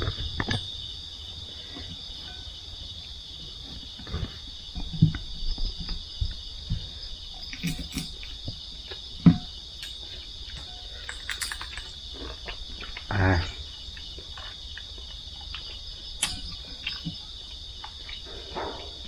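Steady high-pitched chorus of night insects in the forest, running unbroken, with occasional light clicks and knocks from dishes and eating by hand.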